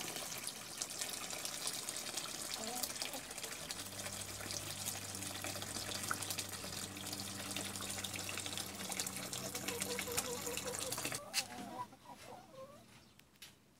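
Water running steadily into the hens' water basin, cutting off about eleven seconds in. Hens cluck softly now and then.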